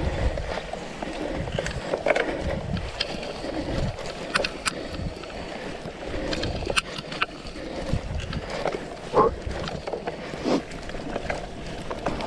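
Cyclocross bike ridden through a sandy, bumpy section: tyres churning over sand and rough ground, with the bike rattling and knocking sharply over the bumps.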